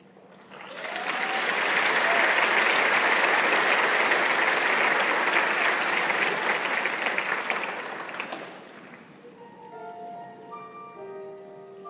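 Audience applauding, starting about half a second in and fading out after about eight seconds. A few soft held instrumental notes follow near the end, the start of a musical introduction.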